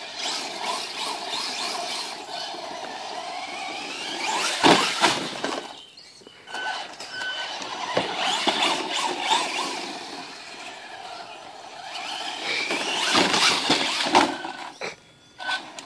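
Traxxas Slash 4x4 radio-controlled truck with a Castle Mamba Max Pro brushless system, its motor whining up and down in pitch as it is driven over dirt. The whine is loudest in two stretches, about five seconds in and again near the end, with a short lull at around six seconds.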